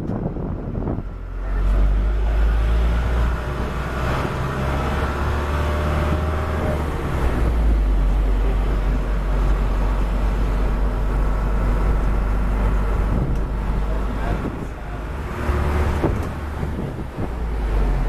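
Wind buffeting the microphone with the running engine and road noise of an open-sided tour vehicle on the move, a steady low rumble that eases briefly about a second in and again near the end.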